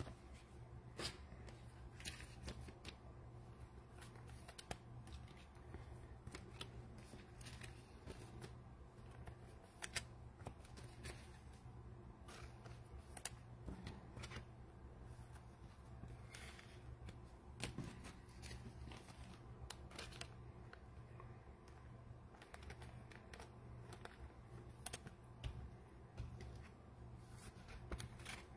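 Faint handling of trading cards and foil card packs: scattered light clicks and rustles over a low steady hum.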